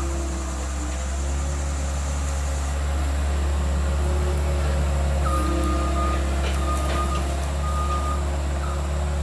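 Skid steer engine running steadily, with its reversing alarm beeping about four times in the second half as the machine backs up.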